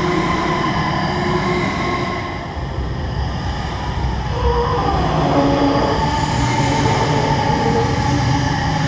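A film sound-design drone: a steady low rumble with several held, shifting tones layered over it, growing louder about halfway through.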